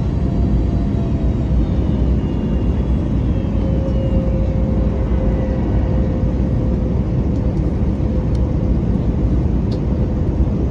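Steady cabin rumble of an Airbus A321neo in descent, heard from a window seat near its CFM LEAP-1A engine. A faint engine whine slides lower in pitch over the first few seconds.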